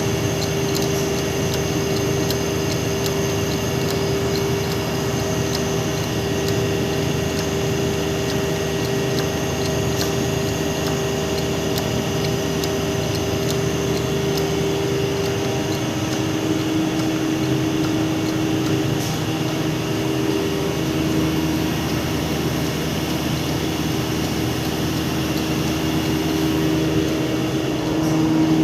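Steady drone of industrial plant machinery running, with several steady motor tones; the strongest tone steps down slightly in pitch just past halfway.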